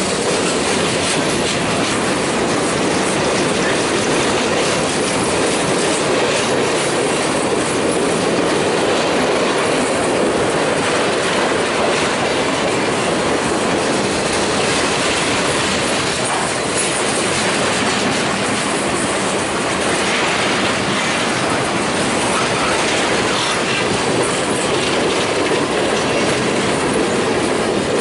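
Freight train cars (covered hoppers and boxcars) rolling past close by: a steady rumble of steel wheels on the rails with continuous clatter.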